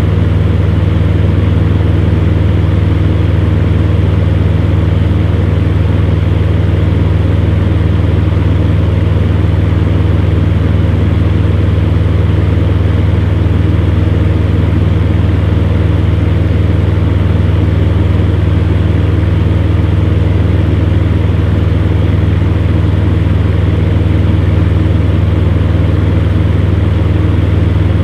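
Electric fan running steadily: a deep, even motor hum under a constant rush of moving air, with no change in speed.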